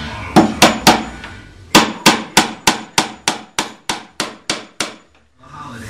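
Hammer blows on a wooden beam overhead: three quick strikes, a short pause, then an even run of about eleven strikes at roughly three a second, growing slightly weaker toward the end.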